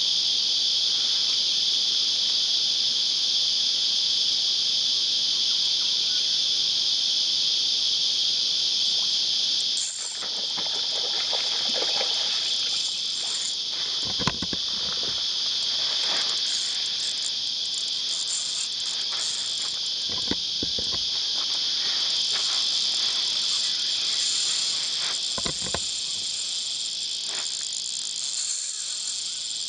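Loud, steady chorus of cicadas, an even high-pitched drone that dips slightly and changes about ten seconds in.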